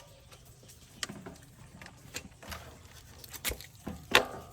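Scattered short clicks and knocks, the loudest about four seconds in, from parts and tools being handled.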